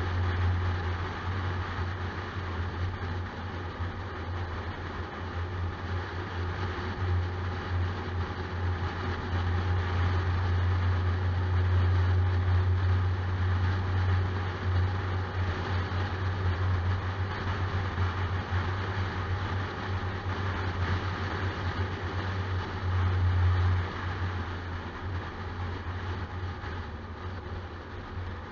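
A car driving at road speed: a steady low drone of engine and tyre noise.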